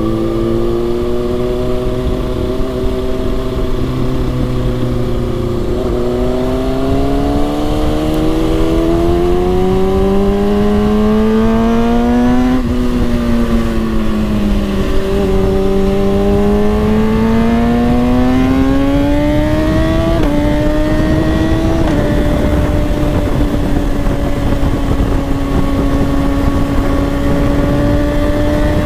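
Kawasaki ZX-6R 636's inline-four engine under way, the pitch climbing as it accelerates and dropping back at gear changes, then holding steady at cruising speed over the last third. Heavy wind noise on the microphone.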